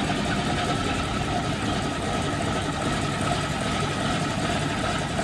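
Radial engines of a Boeing B-17G Flying Fortress idling steadily just after start-up, an even, unchanging drone. The B-17G's engines are Wright R-1820 Cyclone nine-cylinder radials.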